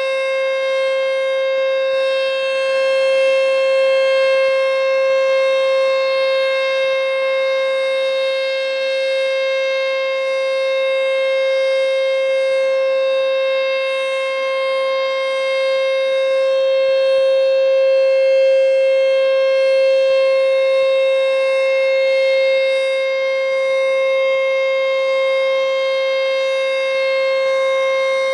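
American Signal Corporation T-121 electromechanical tornado siren sounding its steady alert signal during a test: one loud, unwavering tone that neither rises nor falls in pitch, swelling and fading slightly in loudness.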